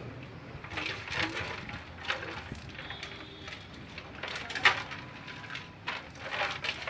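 Water sloshing inside a rusty steel motorcycle fuel tank and splashing out onto the ground as the tank is tipped up to drain, in irregular bursts with one sharp knock midway.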